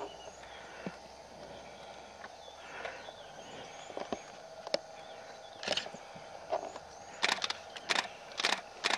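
Dry grass and leaves rustling and crackling in a run of short, sharp bursts, bunched in the last few seconds. Faint high bird chirps come every second or so over a steady low background.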